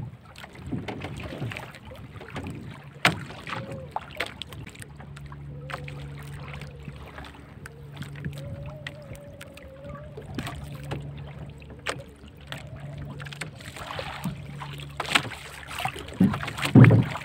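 Scattered light knocks and clicks of longline fishing line and hooks being handled in a wooden outrigger boat, with a faint low hum that comes and goes. The knocks grow louder and closer together near the end.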